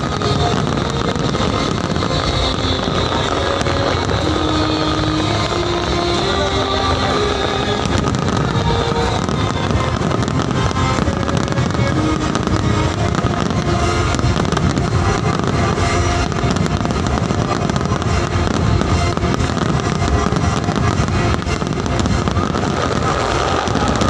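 A large fireworks display bursting in a dense, unbroken run of bangs and crackles, with music playing underneath.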